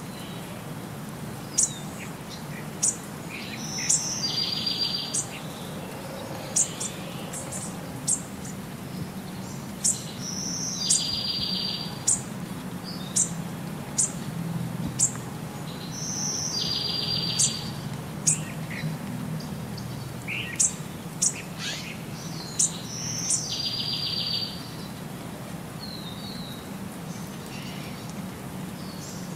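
Birdsong: sharp high chirps about once a second and a short buzzy trill, the whole pattern repeating about every six and a half seconds, over a faint low hum.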